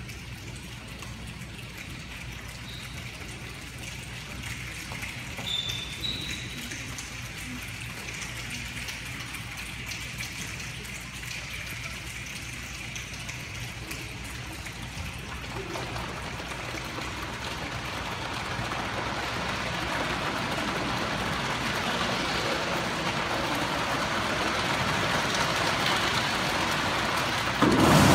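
A large choir imitating a rainstorm with their hands and bodies: an even, rain-like hiss of rubbing and tapping that builds and grows steadily louder through the second half, then a sudden loud hit just at the end.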